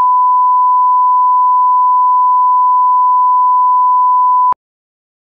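Steady 1 kHz sine-wave reference tone, the line-up tone that accompanies colour bars. It cuts off suddenly about four and a half seconds in.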